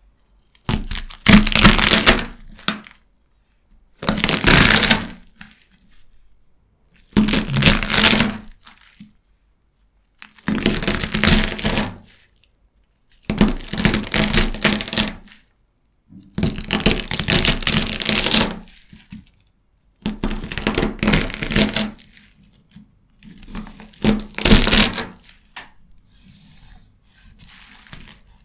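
Crisp celery stalks being cut through with a knife: a crunchy, crackling snap with each slice, about eight cuts a few seconds apart, each lasting a second or two.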